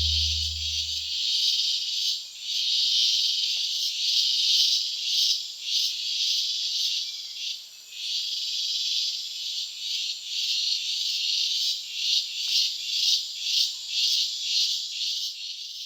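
Insect chorus: a dense, high, shrill buzz that swells and pulses, the pulses quickening to about three a second in the last few seconds. A low music note dies away in the first second.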